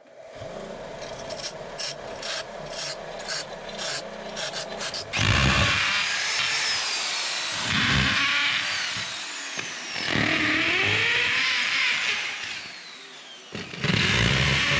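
Power tool working metal. Lighter rapid scraping over a steady hum gives way about five seconds in to loud grinding in several passes, with short pauses between them.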